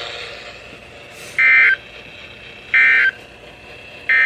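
Three short bursts of EAS SAME digital data, a buzzy two-tone warble, about 1.4 seconds apart: the end-of-message code that closes an alert.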